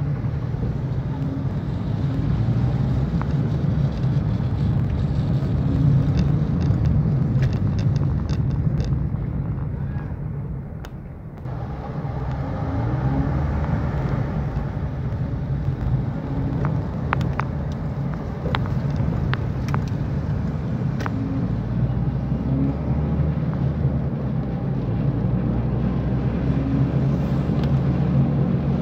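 Car cabin noise while driving on wet roads: a steady low engine and tyre rumble with a wash of road spray, and scattered sharp ticks on the windscreen. The sound changes abruptly about eleven seconds in, then carries on much the same.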